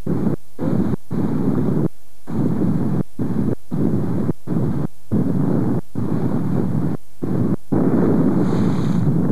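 Wind buffeting a camcorder microphone: a loud, rough rumble, broken by short dropouts about once or twice a second.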